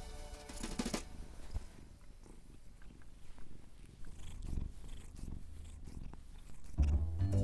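Kitten purring, a low rumble, after music fades out about a second in; music comes back near the end.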